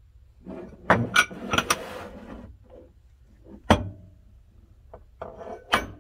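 Aluminium soft-plastic bait mold pieces being handled: a quick run of metal clinks and clatter about a second in, then two single sharp knocks, one around four seconds and one near the end.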